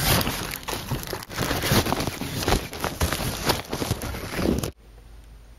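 The thin fabric of a pop-up cat tunnel crinkling and rustling as it is handled and a cat's paw is rubbed against it. The sound cuts off suddenly near the end.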